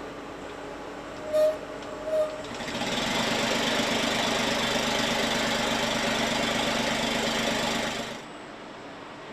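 Two short electronic beeps, then a freshly assembled BMW engine running steadily on an automated end-of-line test stand for about five seconds before the sound cuts off abruptly.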